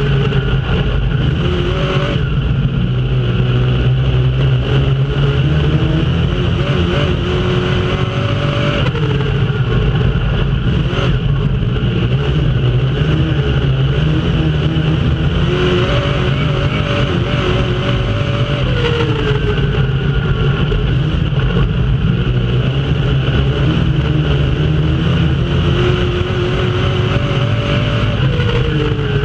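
Dirt-track race car engine at full race speed, heard from inside the cockpit. The pitch climbs and then drops about three times as the throttle is opened and lifted around the laps, over a constant rumble of drivetrain and tyre noise.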